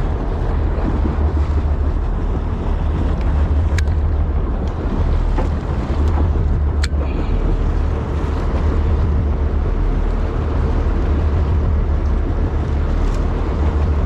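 Wind buffeting the microphone over water noise and a faint steady hum from the boat. Two short sharp clicks come about four and seven seconds in.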